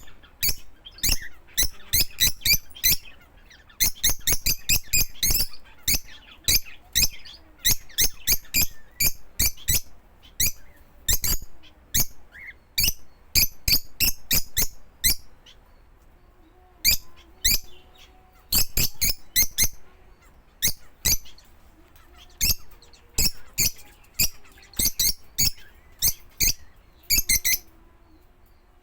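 A small bird giving short, sharp, high chirps in quick irregular runs of several a second, with a pause of about a second partway through.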